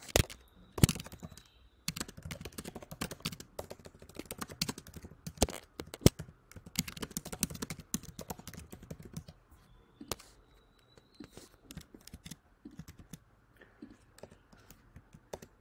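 Typing on a computer keyboard: quick runs of keystrokes that thin out to scattered keys near the end, with a couple of sharper single clicks.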